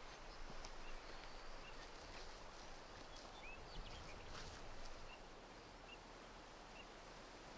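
Faint outdoor ambience with a few short, high bird chirps scattered through it, a little quieter over the last couple of seconds.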